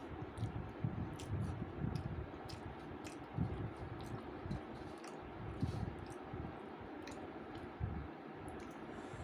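A person eating a rice meal close to the microphone: irregular wet chewing and small mouth clicks and smacks.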